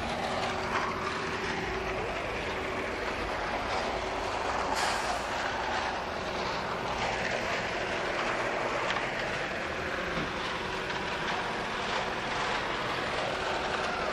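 Steady city street traffic noise, a continuous hum of motor vehicles on the road.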